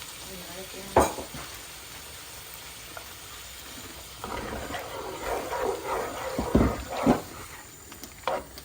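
Spoon stirring and scraping a pan of chicken simmering in a stock-and-flour sauce over a steady low sizzle. There is a sharp knock about a second in, and two louder knocks of the spoon against the pan near the end of the stirring.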